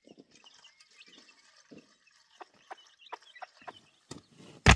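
Faint birds chirping, with scattered soft knocks, then a loud sharp knock near the end.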